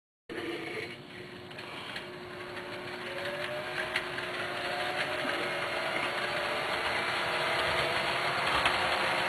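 Model train running on the layout, the speaker's three Budd RDC-3 cars: a steady motor hum with a whine that rises in pitch, growing louder as it comes closer, with a few sharp clicks of the wheels on the track.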